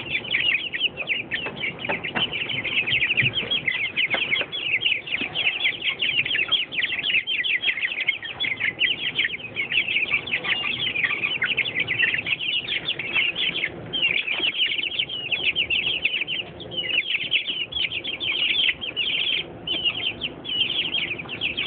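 A brood of four-week-old Black Australorp chicks peeping without a break: many short, high chirps overlapping several times a second.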